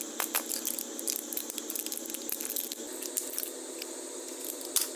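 Gloved fingers handling a chewing gum pack, with crinkling of the packaging and many small clicks, then a steady hiss. One sharper click comes near the end.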